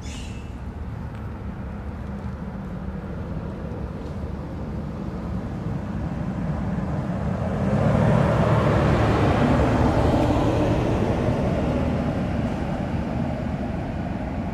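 A pickup truck approaching and driving past close by, its engine and tyre noise swelling to a peak about eight seconds in and then slowly fading away.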